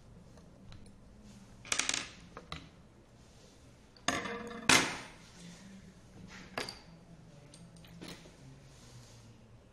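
Metal clinks and clanks as a steel scooter brake disc, its bolts and a T-handle hex key are handled and set down on a table. The clinks are scattered and irregular, with the loudest clank, which rings briefly, a little under five seconds in.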